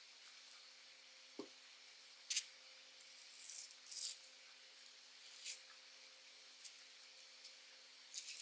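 Thin white wrapping being rustled and crinkled by hands as it is pulled open around a speaker, in short scratchy bursts. A single soft low thump about a second and a half in.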